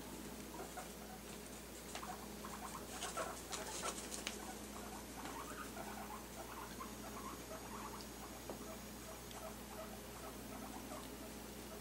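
Guinea pigs squeaking in short, rapidly repeated chirps, with a few sharp scratchy sounds about three to four seconds in.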